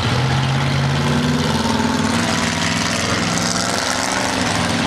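Engines of several pure stock race cars running laps on a dirt oval track: a steady, loud engine drone whose pitch rises and falls as the cars accelerate and pass.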